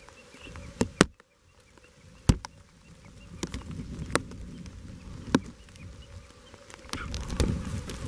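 Irregular sharp clicks or knocks over a low rumbling noise that swells near the end.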